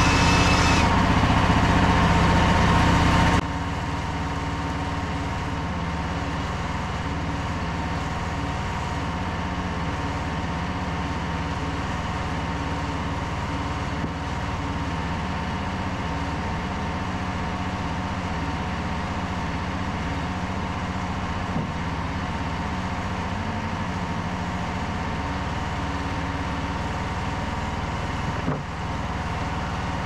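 Frontier OS27 sawmill's petrol engine running steadily at idle. A louder rushing noise over it cuts off abruptly about three seconds in.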